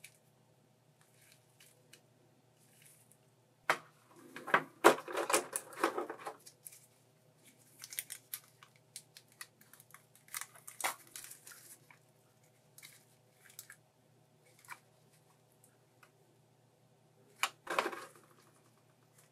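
Plastic handling noise: clicks, taps and crinkling as a clear plastic blister tray and small plastic figure parts are handled. A dense cluster of clicks and crinkles comes a few seconds in, with shorter bursts in the middle and near the end.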